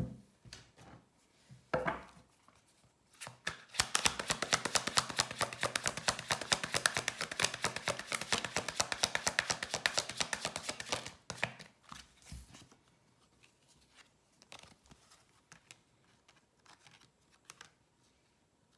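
Tarot deck being shuffled by hand: a fast, even run of crisp card clicks lasting about seven seconds, which stops abruptly. A few soft taps follow as cards are laid on the table.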